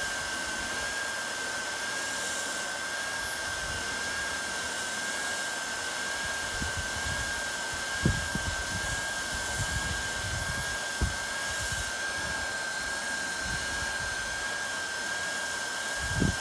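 Hot-air gun running steadily with a steady high whine, blowing hot air onto a glued PVC fitting to soften the pipe inside it. A few short low knocks come about halfway, later on, and near the end.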